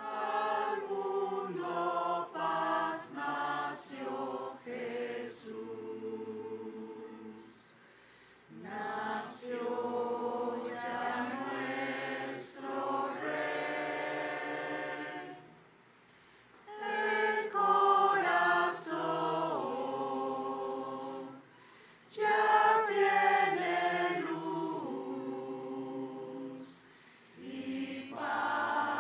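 A choir singing in phrases of a few seconds, with brief pauses in which nothing else plays, so the singing sounds unaccompanied.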